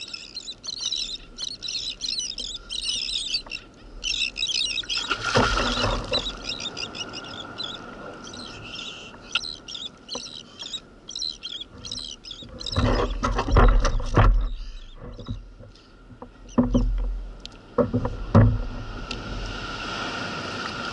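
A spinning fishing reel chirring fast as it is cranked while playing a fish. Then water splashing and a few knocks against the kayak.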